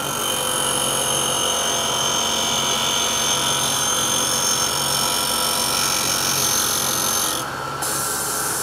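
Tool-and-cutter grinder's wheel spinning steadily while an end mill is ground against it: a steady grinding sound with a pulsing low hum and a high hiss that drops out briefly near the end.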